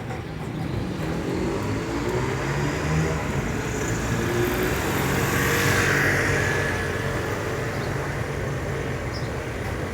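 Road traffic with a motor vehicle's engine running and one vehicle passing close by, swelling to its loudest about six seconds in and then fading.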